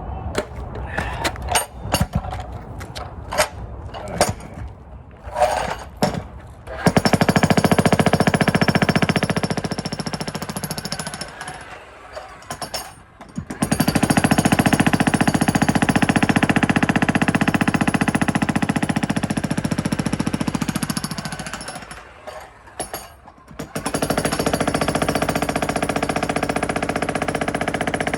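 Jackhammer breaking up concrete, running in three long bursts of rapid hammering with short pauses between. Before the first burst come scattered sharp knocks and clatter.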